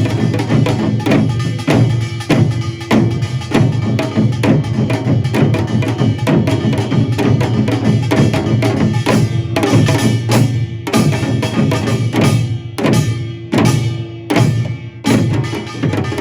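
Korean pungmul percussion ensemble playing seated (anjeunban): small kkwaenggwari gongs, hourglass janggu drums, buk barrel drum and a low ringing jing gong in fast, dense rhythm.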